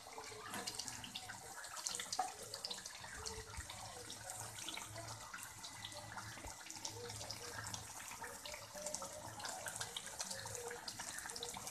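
Thick snakehead fish curry simmering in a karahi, the gravy bubbling with a continuous patter of small irregular pops.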